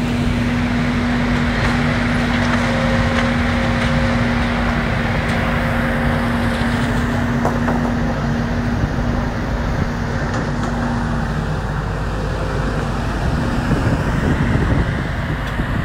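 Diesel engine of a Volvo tracked demolition excavator running steadily with a constant hum. The hum eases about two-thirds of the way in, and rough wind rumble on the microphone comes in near the end.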